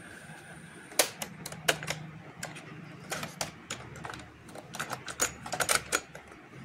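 Plastic clicks and clacks from a Philips RM 170 mono cassette player as its cassette door is opened and a tape cassette is handled in the deck: a sharp click about a second in, scattered clicks after it, and a quick run of clicks near the end.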